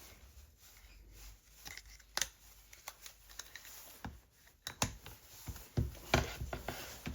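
Scattered light clicks, taps and scrapes of a prying tool being worked at the edge of a tablet's glued-on screen, with a cluster of sharper clicks near the end.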